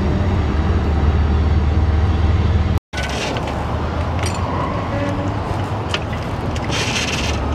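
A low, steady engine drone. It breaks off for a moment just under three seconds in, then carries on with a few faint clicks.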